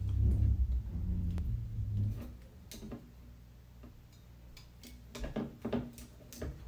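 Winged corkscrew being twisted into a wine bottle's cork. A low rumble of handling noise comes first, then a run of sharp clicks from the corkscrew and bottle about five seconds in.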